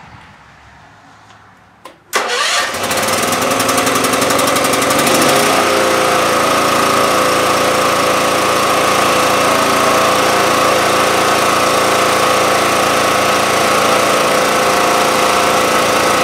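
True Life 5000E portable generator's engine starting cold on choke, its first start after the winter: a click about two seconds in, then the engine catches at once and runs loud. Its pitch rises and settles into a steady run about five seconds in.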